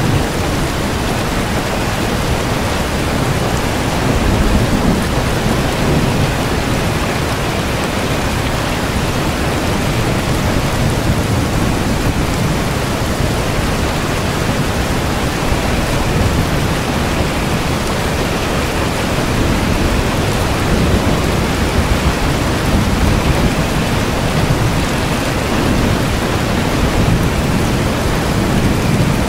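Steady heavy rain falling, with a low rumble swelling a few times, about four seconds in and again in the last third.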